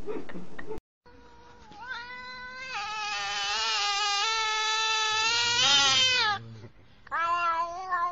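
Black-and-white cat meowing up at the camera. It gives one long, drawn-out meow of about five seconds that grows louder, then a second, shorter, wavering meow near the end.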